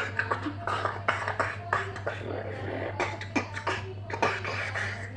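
A person beatboxing: a fast, rhythmic run of mouth-made drum sounds, sharp clicks and snare-like hits, with the hands cupped around the mouth.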